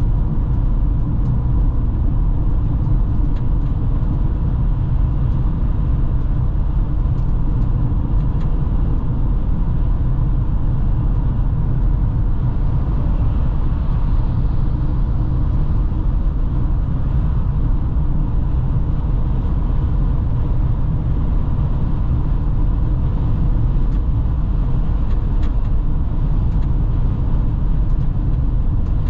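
Steady low road and engine rumble of a car driving at highway speed, heard from inside the cabin, with a few faint ticks.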